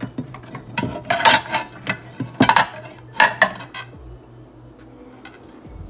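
Plates clinking and clattering against each other as they are taken out and set down, in several quick bursts over the first four seconds, then quiet handling.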